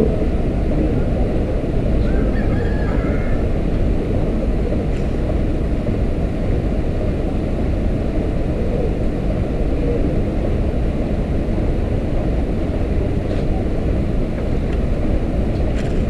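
Wind buffeting an outdoor camera microphone: a steady low rumble.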